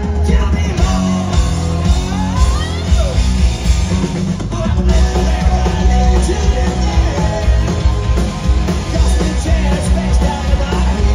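Live rock band playing loudly, a male singer singing over drums, bass and guitars.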